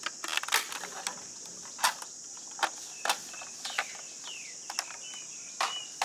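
Sharp plastic clicks and taps from a toy ambulance being handled and its door worked, scattered irregularly, over a steady high insect hiss. A bird gives a falling chirp a little past four seconds and a few short whistled notes near the end.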